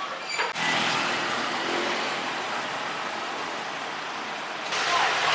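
Heavy rain pouring down in a steady hiss, jumping suddenly louder near the end.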